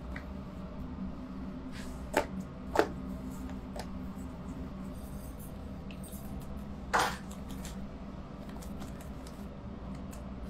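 Steady low machine hum, with a few sharp knocks: two about half a second apart a couple of seconds in, and a louder one about seven seconds in.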